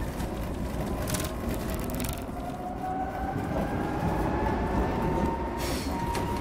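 MF88 Paris Metro train running, heard from the front of the train: a steady rumble of the train on the track with a motor whine that slowly rises in pitch as it gathers speed, and a couple of brief rattling stretches, one near the end.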